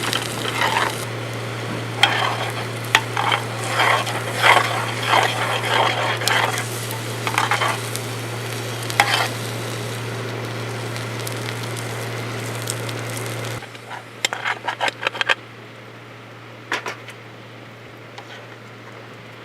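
Food sizzling in a pan on a camp stove, with a utensil scraping and clinking against the pan. About two-thirds of the way through the sizzle drops away suddenly, leaving a few light clinks.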